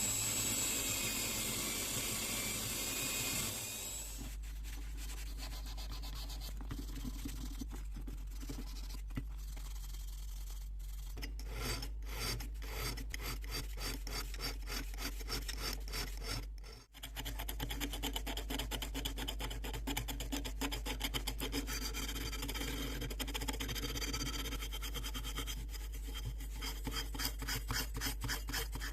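A steady whirring hiss stops about four seconds in. Then come long runs of rapid back-and-forth rasping strokes of a hand tool rubbing a carburetor part, with a steady low hum underneath.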